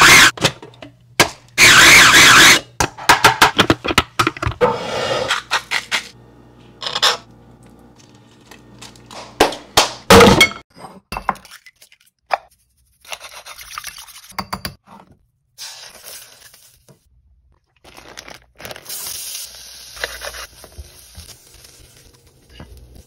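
A run of kitchen sounds: a food processor running briefly near the start, then knocks, clinks and scrapes of utensils and bowls, eggs cracked against a bowl, and a spatula scraping through rice in a pan near the end.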